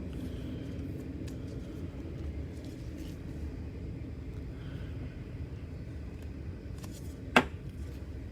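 Steady low background rumble, with one sharp click or tap about seven seconds in.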